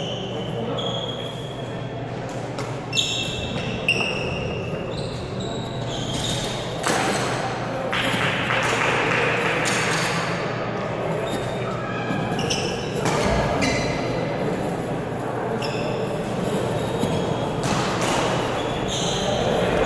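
Badminton shoes squeaking on a wooden gym floor as players move during a doubles rally, with a couple of sharp shuttlecock racket strikes about three and four seconds in, over a steady murmur of voices echoing in a large hall.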